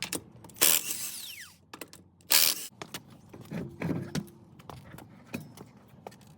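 Power tool spinning the truck's front lug nuts off in two short bursts, the first winding down in pitch, followed by light clicks and clinks of the loosened nuts and socket.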